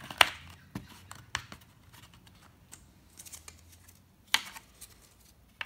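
Small PET plastic inserts clicking and tapping against plywood as they are flexed and pushed into round holes in a wooden frame. There is a sharp click just after the start, a few lighter ticks, and another sharp click about four seconds in.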